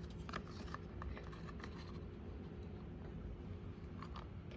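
Scattered light clicks and scrapes of small carburetor parts being handled as the gasket and top half of a Motorcraft 2150 carburetor are fitted, over a steady low hum.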